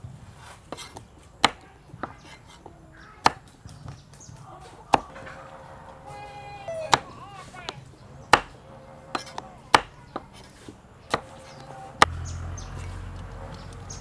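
Knife chopping carrot and white radish on a wooden chopping board, cutting them into ridged pieces. Sharp single chops come about one to two seconds apart, with lighter taps in between.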